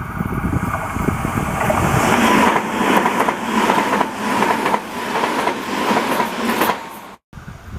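N gauge model of a Tobu 100 series Spacia running past: a steady motor whine with a rapid patter of wheel clicks over the track joints, building up and then cutting off suddenly near the end.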